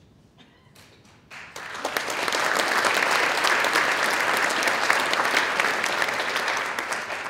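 Audience applauding. It starts about a second and a half in, builds quickly, holds steady, and begins to fade near the end.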